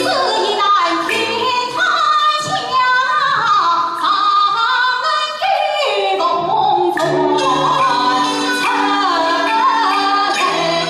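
Female Yue opera (Shaoxing opera) singer performing an aria in the male scholar role, her voice gliding between long held notes over instrumental accompaniment.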